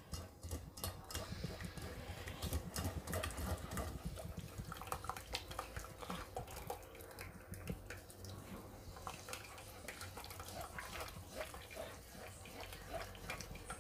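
Wooden spatula scraping and pressing cooked vegetables in a fine stainless-steel mesh sieve as braising broth trickles through into the pot below: a run of small irregular scrapes and clicks with liquid dripping.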